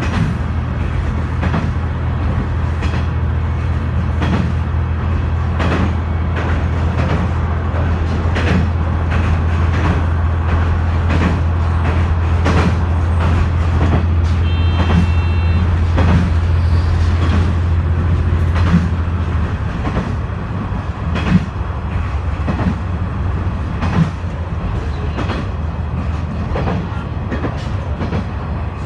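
KiHa 126 diesel railcar running along the line, heard from inside the car: a steady low diesel engine drone with regular clicks of the wheels passing over rail joints. About two-thirds of the way in the engine drone drops back, and a brief high tone sounds about halfway through.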